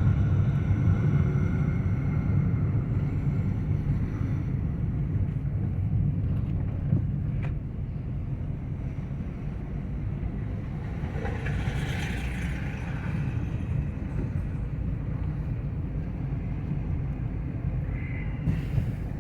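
Steady low rumble of a motor vehicle under way, engine and road noise together. About twelve seconds in, a brief hiss swells and fades.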